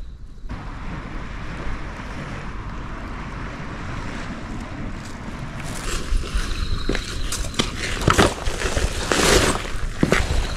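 Steady rush of wind outdoors. From about six seconds in, close rustling, clicks and knocks come from a large backpack being swung off and handled right by the microphone.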